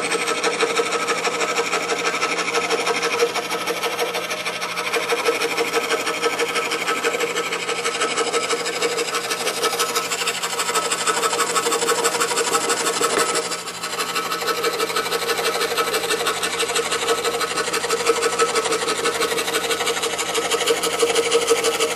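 DeWalt scroll saw running, its thin blade cutting intricate curves in plywood with a steady rapid buzz. The cutting sound dips briefly a little past halfway, then carries on.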